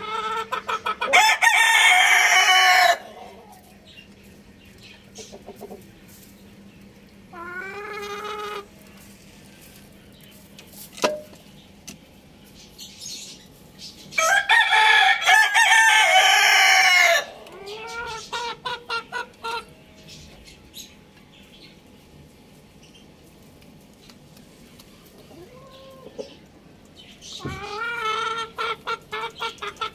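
Rooster crowing: three long, loud crows, the first right at the start, one about fourteen seconds in and one starting near the end. Between them come a shorter, fainter call about seven seconds in and a quick run of short clucks just after the middle crow.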